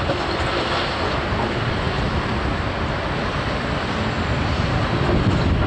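Steady low rumble of heavy diesel machinery on a construction site, with a continuous noisy hiss over it and no distinct knocks or changes.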